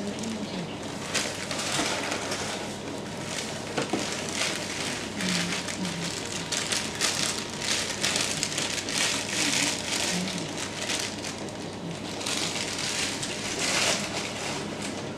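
Plastic bag of dry brownie mix crinkling and rustling as the powder is poured out of it into a glass mixing bowl, in uneven bursts of crackly noise.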